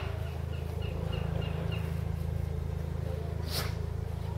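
Outdoor ambience with a steady low hum. A small bird chirps quickly and repeatedly for the first couple of seconds, and a single sharp click comes about three and a half seconds in.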